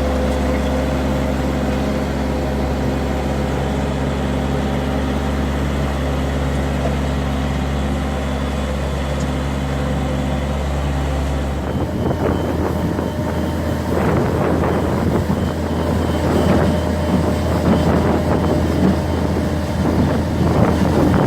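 Engine of an agricultural forklift running at a steady, even pitch. About halfway through, its note steps up and a rougher, fluctuating noise takes over.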